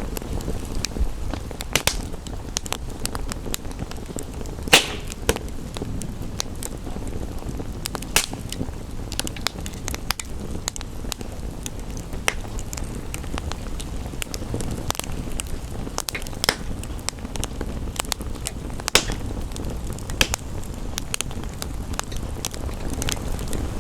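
Wood fire crackling in a fireplace: a steady low rumble of flames with irregular sharp pops and snaps, the loudest about five seconds in, over a soft hiss that may hold gentle rain.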